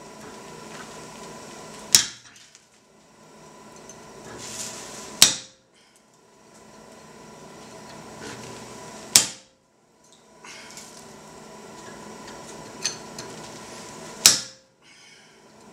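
Hand hammer blows on a chisel held in red-hot steel on an anvil: four sharp, ringing strikes a few seconds apart, with a lighter tap just before the last. A steady hiss sits under the strikes.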